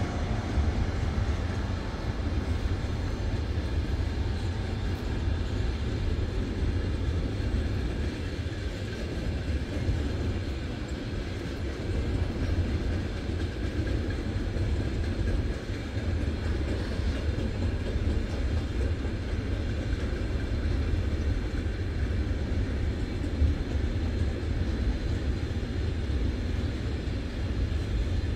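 A long freight train of enclosed double-deck car-transporter wagons rolling steadily past on the rails, a continuous low rumble of wheels on track.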